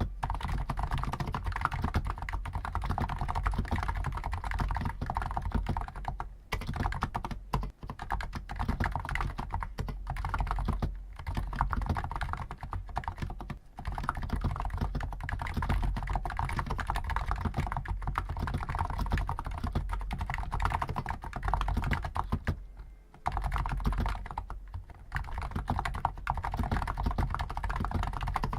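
Continuous typing on a Hansung GTune CHL5 XRGB electro-capacitive (non-contact) keyboard with stock 50 g switches: a dense, rapid run of key strokes broken by a few short pauses.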